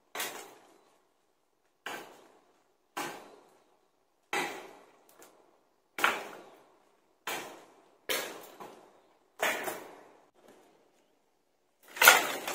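A series of about nine sharp strikes, roughly one every second and a half, each dying away quickly. The last one, near the end, is the loudest.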